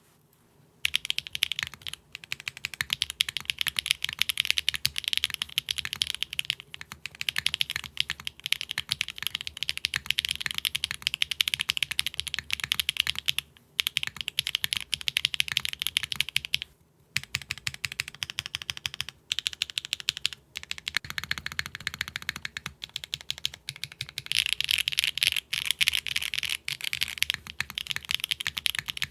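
Fast, continuous typing on a mechanical keyboard built without case foam: a dense run of key clacks, broken by a few short pauses around the middle.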